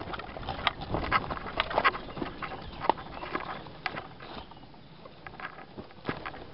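Footsteps hurrying through leaf litter and undergrowth, with plants brushing past and irregular clicks and knocks, a few a second.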